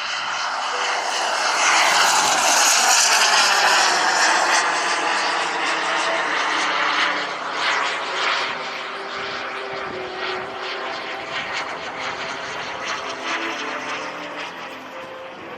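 A pair of quarter-scale Aero L-39 Albatros model jets, each driven by a JetCat P-180Rxi turbine, making a pass with a high rushing turbine whine. The whine swells over the first two seconds with a sweeping, phasing quality, stays loud for a few seconds, then fades as the jets fly away.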